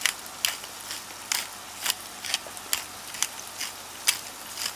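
Black pepper being ground from a pepper mill over a frying pan: sharp crunching clicks, about two a second, over the faint sizzle of shrimp and vegetables frying.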